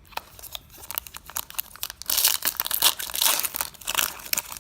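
A foil Pokémon TCG booster pack wrapper being torn open and crinkled: scattered small crinkles at first, then from about two seconds in dense, loud tearing and crinkling of the foil.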